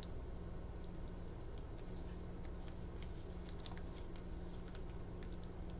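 Tarot cards being handled, with scattered faint clicks and light taps over a steady low hum.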